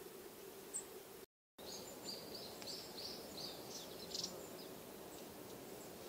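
Small songbirds calling: a quick run of about a dozen short, high call notes over two and a half seconds, after a brief dropout in the sound. A steady low hum lies under them.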